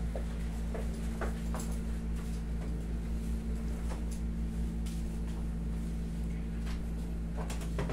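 Steady low hum of a room air conditioner running, with a few light knocks and rustles.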